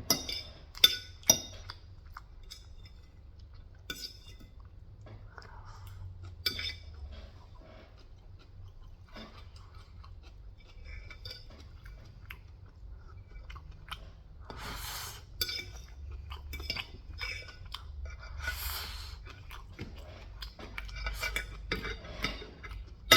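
Close-miked chewing of Korean fried chicken, with scattered small clicks and light clinks of tableware, and two short breathy rushes in the second half.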